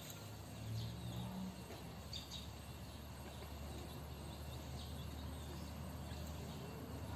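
Quiet outdoor background with a low steady hum and a few faint, brief high-pitched chirps.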